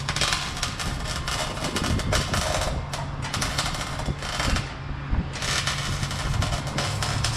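Exhaust-shop work noise: a fast, uneven run of knocks and clatter over a steady low hum.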